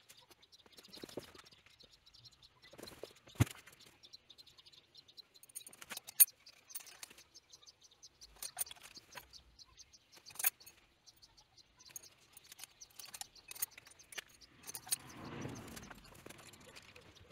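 Scattered light metallic clicks and clinks of small parts or tools being handled, the sharpest about three and a half, six and ten seconds in, with a soft rustling near the end.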